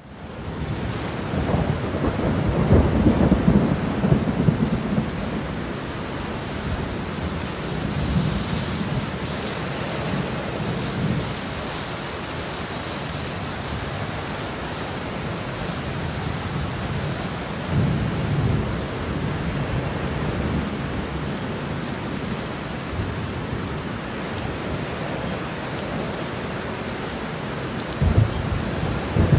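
Steady rain falling through a thunderstorm, with thunder rumbling. The longest and loudest rumble comes in the first few seconds, softer rumbles follow now and then, and a sharper clap of thunder breaks near the end.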